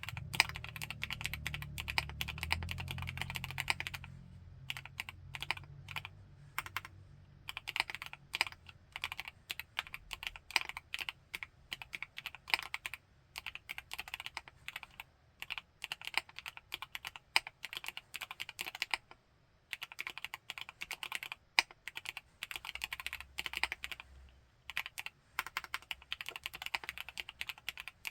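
Typing on a Createkeebs High65 V2, a 65% CNC-aluminium gasket-mount mechanical keyboard with Gateron CJ linear switches: fast runs of crisp, high-pitched keystrokes broken by a few brief pauses.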